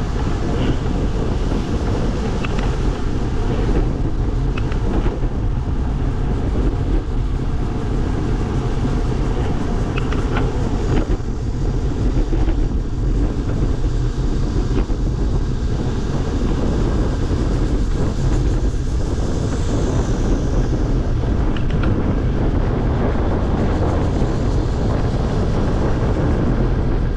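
Steady low rumble of wind buffeting the microphone while cycling along a road, with road noise underneath.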